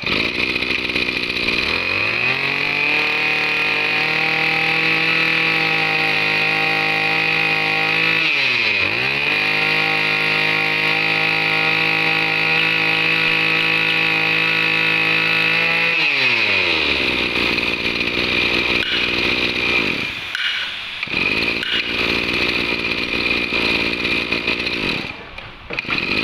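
Maru 23 cc two-stroke brush cutter engine revved up to high speed and held there, with a quick drop and recovery about nine seconds in. It is throttled back to idle at about sixteen seconds and idles unevenly, its level dipping twice near the end.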